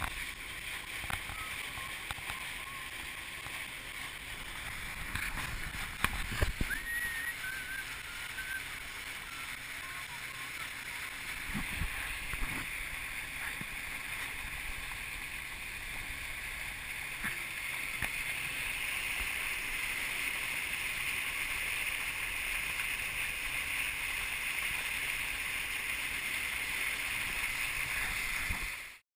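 River water sloshing and gurgling around a kayak, with a steady rush of running water that grows louder in the second half. A few low knocks, the loudest about six seconds in.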